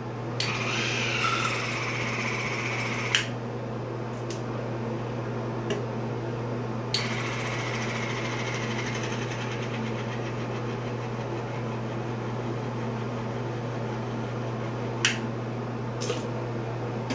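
Cordless water flosser running with its tip in the mouth: the pump buzzes steadily throughout, with a hiss of spraying water in the first few seconds and a few sharp clicks.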